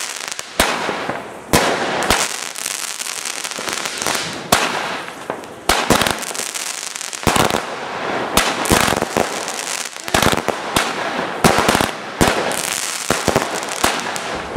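Fireworks going off: many sharp bangs and cracks in quick, uneven succession, over a steady crackling hiss.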